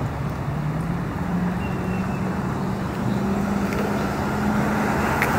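Motor vehicle driving: a steady engine hum that rises a little in pitch over a constant rushing noise.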